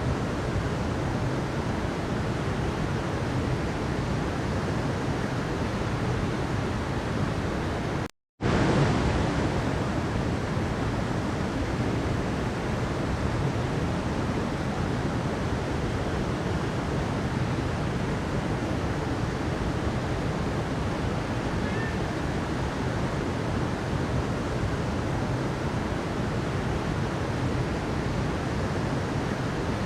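Steady rush of river water tumbling over a waterfall, cut by a brief gap of silence about eight seconds in, after which it comes back slightly louder.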